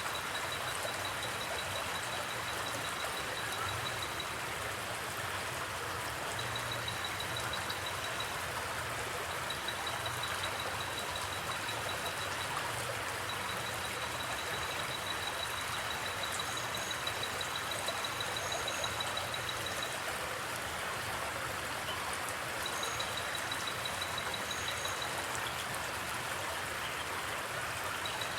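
River water flowing steadily, with crickets trilling at a high pitch in spells of a few seconds. A few brief, higher chirps sound in the second half.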